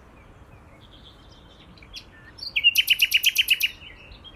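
Common nightingale singing: quiet high phrases at first, then, about two and a half seconds in, a loud rapid run of repeated notes, about eight a second for just over a second, before it falls back to quieter phrases.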